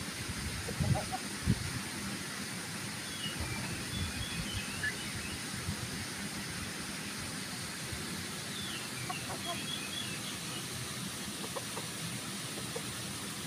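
Roosters giving a few soft clucks while they forage, over high chirps and steady background hiss. A couple of low thumps come about a second in.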